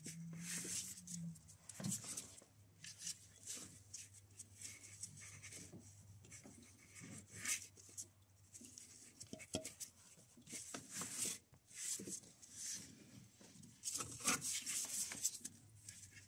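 Faint, scattered rubbing, scraping and light clicking as a gloved hand works a new thermostat into its seat in a 1.9 TDI engine, over a low steady hum.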